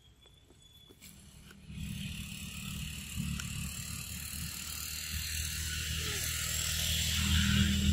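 A vehicle approaching, starting about two seconds in and growing steadily louder toward the end, a low rumble under a hiss.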